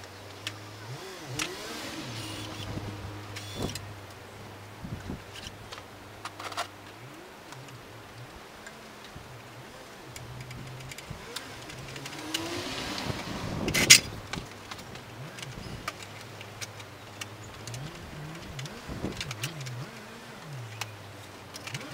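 Steel computer case being taken apart: a cordless drill-driver whirs in short bursts that speed up and slow down, with scattered clicks and clinks of screws and sheet-metal parts, and one loud metal clank about 14 seconds in.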